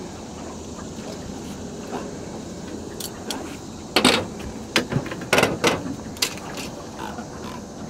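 Handling noise while a small catfish is unhooked on a boat: a cluster of sharp knocks and clatters about four to six seconds in, over a steady background hiss.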